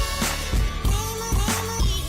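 Background music: a pop/R&B track with a steady beat and a singing voice.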